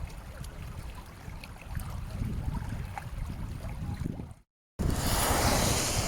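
Steady rushing of water in a rainstorm, with wind buffeting the microphone. It cuts out for a moment about four and a half seconds in and comes back louder and hissier.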